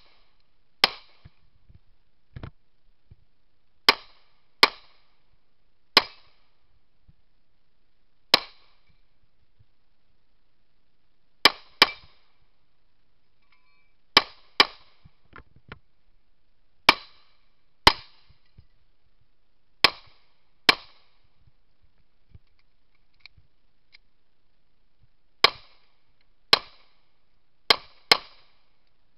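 Pistol shots fired in a practical-shooting stage: about seventeen sharp shots, some single and some in quick pairs half a second to a second apart, with pauses of a few seconds between groups.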